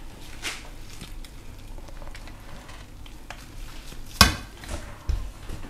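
Kitchen knife cutting a roasted turkey leg on a steel tray, the blade scraping and tapping against the metal. One sharp ringing clink of the blade on the tray about four seconds in is the loudest sound.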